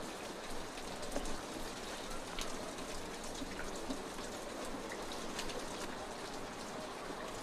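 Rain falling steadily, an even hiss with scattered drops ticking.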